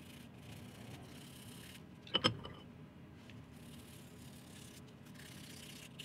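Toothbrush bristles scrubbing a rusty pocket knife: a faint, steady scratching. A single sharp clack about two seconds in.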